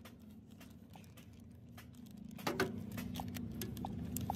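Plastic bag of a hydraulic seal kit crinkling and rustling as it is handled, with scattered small clicks over a low steady hum; the rustling is loudest about two and a half seconds in.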